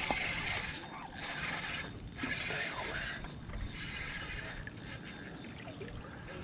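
Spinning reel being cranked, its gears whirring as line is wound in.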